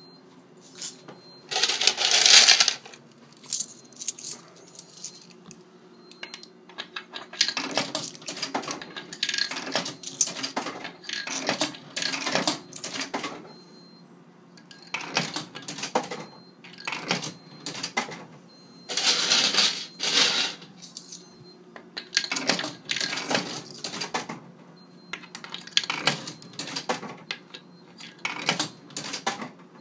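Coins clinking and rattling through a fruit machine as they are fed in to refill its coin hopper: runs of quick metallic clicks, with two louder clattering bursts about two seconds in and about nineteen seconds in, over a steady low hum.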